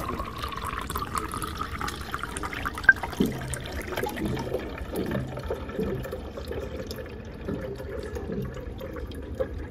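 Water running from the hot-water tap of a CWAY water dispenser into a glass jar, the pouring tone rising slightly as the jar fills. A sharp tick about three seconds in, then uneven low gurgling.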